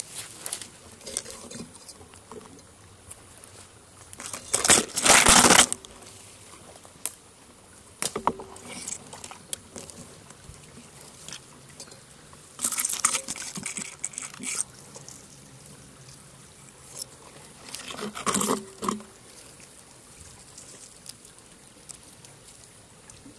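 Woodland stream trickling softly, broken three times by brief loud rustling, about five, thirteen and eighteen seconds in.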